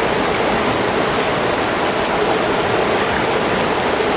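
Fast-flowing river rushing steadily, a constant even rush of water.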